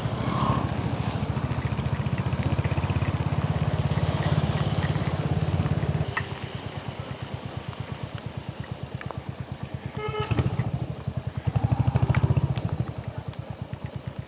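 Royal Enfield Hunter 350's single-cylinder engine running with an even pulse, louder at first and dropping to a quieter, softer run about six seconds in. A brief high tone sounds about ten seconds in.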